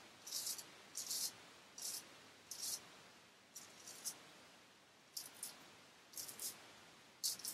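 Japanese straight razor cutting through stubble in short scraping strokes, about one or two a second at slightly uneven spacing.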